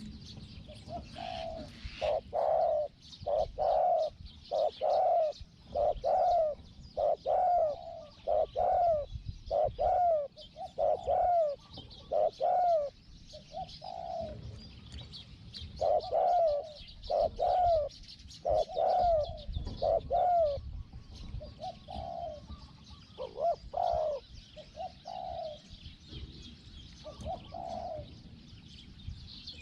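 Spotted dove cooing: a run of short, repeated coos about one a second, thinning out after about twenty seconds. Small birds chirp faintly behind it.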